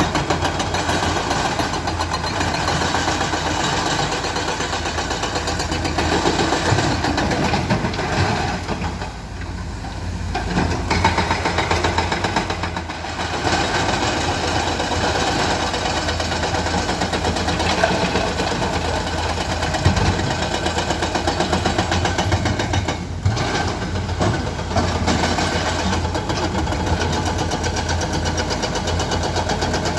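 Heavy earthmoving machinery with diesel engines running steadily, with the engine note dipping briefly about a third of the way in and a single short knock past the middle.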